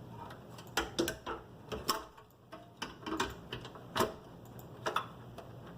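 Irregular clicks and light knocks of a hard drive and its mounting bracket being handled, about ten sharp taps spread unevenly.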